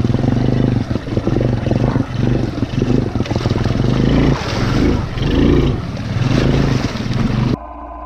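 Honda TRX200SX quad's single-cylinder four-stroke engine running loud up close as it wades through deep water, its note swelling and easing, with water churning and splashing around it. Near the end the sound drops suddenly to a much quieter steady hum.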